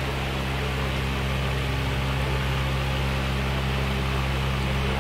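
Steady low electrical hum with a hiss over it, from a running electric motor.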